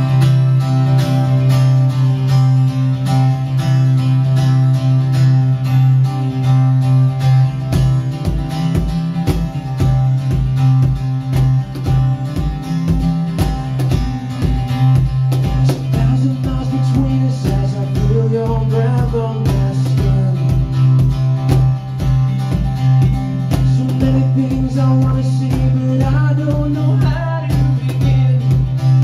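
An acoustic trio playing a song: strummed acoustic guitar over a bass guitar line, with a steady hand-played cajon beat coming in about eight seconds in. A voice sings a few phrases in the second half.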